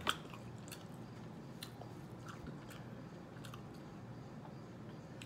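A person chewing a mouthful of homemade spaghetti close to the microphone: faint wet mouth clicks, scattered irregularly, with a sharper click right at the start.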